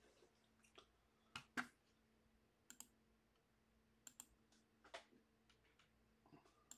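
Faint clicks from operating a computer, about eight in all, several in quick pairs, over a faint steady low hum.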